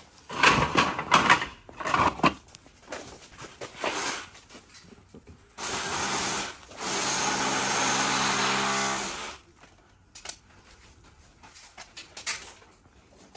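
Clatter of fittings being handled, then a small power tool motor running steadily, first briefly and then for about two and a half seconds before stopping.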